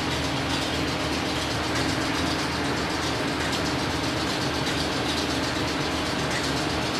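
A machine running steadily, with a constant low hum under a fine, fast rattle.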